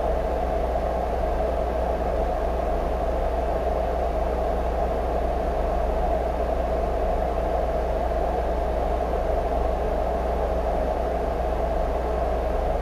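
Steady background hum and hiss with a low drone underneath, unchanging throughout.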